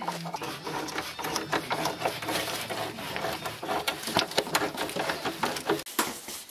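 Hand tools working on car bolts under the bumper area: rapid, irregular clicking and rattling, with a short pause near the end.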